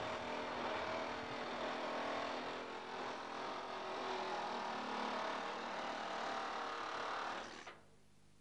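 A hose-fed powered cutting tool working through the sheet metal of a car's roof pillar, running steadily, then cutting off abruptly near the end.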